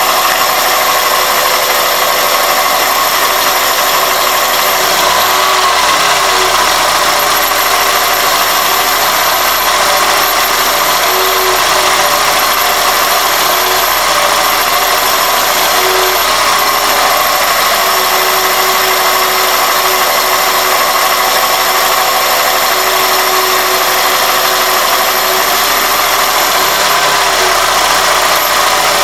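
Toyota Corolla 1ZZ-FE four-cylinder engine idling with a steady high-pitched whistle, its note rising and falling a few times. The whistle was cured by cleaning the dirty throttle plate and idle air control valve and renewing their gaskets.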